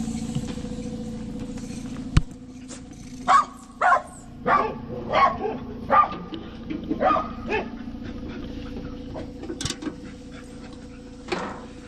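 A dog barking: about seven short barks between about three and eight seconds in and one more near the end, over a steady low hum. A sharp knock sounds about two seconds in.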